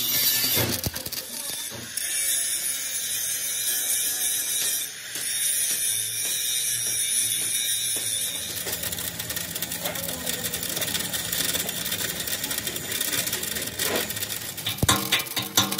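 Metalworking tool noise from an excavator bucket repair: a steady high hiss for the first half, turning to a dense crackle after about eight seconds, with sharp regular ticks near the end.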